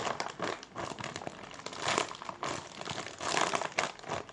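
Plastic packaging crinkling and rustling as it is handled, in irregular crackles with louder handfuls about two and three seconds in.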